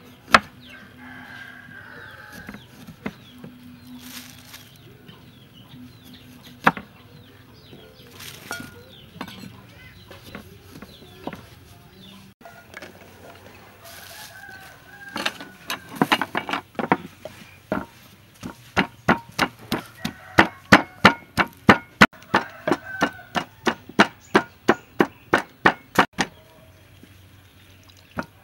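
A pestle pounding garlic and chilies in a wooden mortar: a few irregular strikes, then a fast steady beat of about three strokes a second through the second half. Before that, a few cleaver chops on a wooden cutting board, with chickens clucking in the background.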